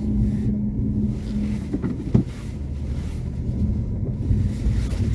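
Renault Duster's engine running at low speed, heard from inside the cabin while the car is manoeuvred slowly into a parking spot in snow. There is a steady low hum, with a single sharp knock about two seconds in.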